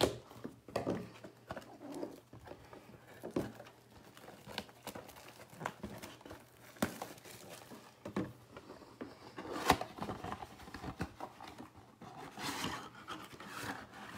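Shrink-wrap being cut and stripped from a Topps Chrome card box and the cardboard box opened: scattered taps, scrapes and plastic crinkling, with one sharp click a little under ten seconds in and denser rustling near the end.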